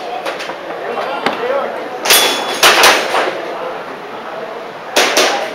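Airsoft pistol shots fired on an IPSC-style course: sharp cracks in quick pairs, about two seconds in and again near the end.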